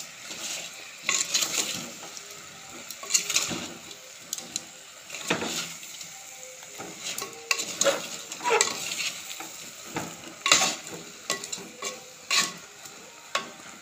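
Steel spoon stirring and scraping small whole green mangoes and spice powders around a clay pot, in irregular strokes about once a second, over the sizzle of the oil they are sautéing in.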